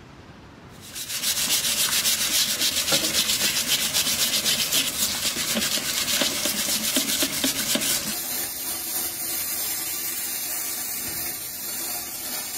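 Stiff brush scrubbing the rusty metal frame of a bread cutter under a running tap: loud, fast rasping strokes starting about a second in. From about eight seconds a steady hiss of an abrasive-blasting gun working on the part inside a blast cabinet.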